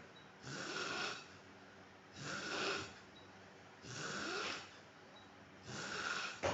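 A man snoring in a steady rhythm: four snores, one about every two seconds, with quiet pauses between them.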